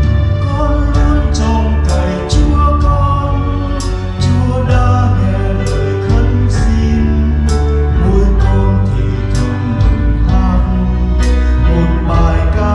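Church choir singing a Vietnamese responsorial psalm setting with instrumental accompaniment.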